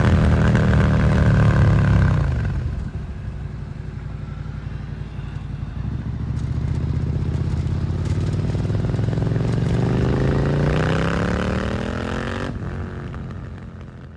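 Suzuki SV650's V-twin through an aftermarket Dominator GP exhaust: the engine pulls hard, backs off about two seconds in and runs low for several seconds, then revs up again with rising pitch before cutting off sharply near the end and fading away.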